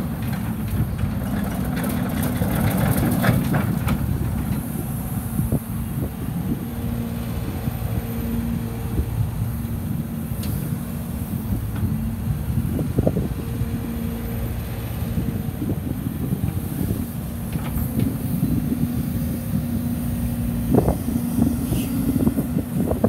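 Hyundai Robex 145LCR-9A excavator's diesel engine running steadily, with a higher hydraulic whine coming and going in spells as the boom and bucket move. A few short knocks are heard.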